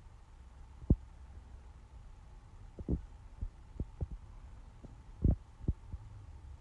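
Soft, irregular taps and thuds of a computer being worked by hand, about nine in all, the loudest about a second in and just past five seconds in, over a steady low hum.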